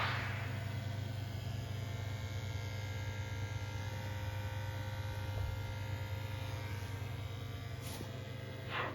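Glowworm Ultracom CXI combi boiler running after its service, giving a steady low hum with faint steady tones above it.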